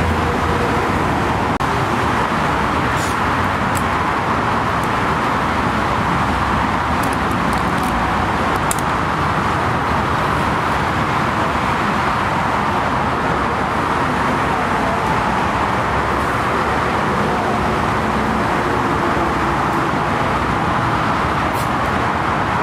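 Steady, unchanging roar of distant engines: the continuous background noise of a busy airport.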